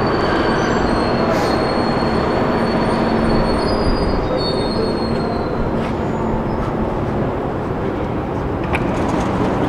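Budapest M4 metro train, an Alstom Metropolis, at the station platform: a steady rumble with a high whine and a low hum. The whine and hum die away about five to seven seconds in.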